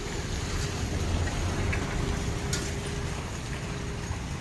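Outdoor background noise: a steady hiss over a low rumble, with a faint steady hum that stops near the end and a few light ticks.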